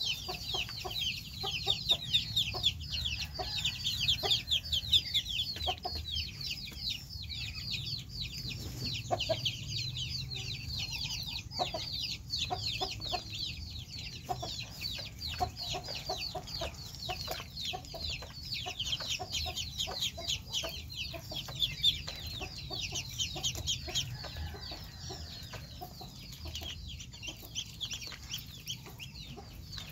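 A flock of ducklings peeping nonstop, many short, high, downward-sliding peeps overlapping, with occasional light splashes as they paddle and dip in a shallow tub of water.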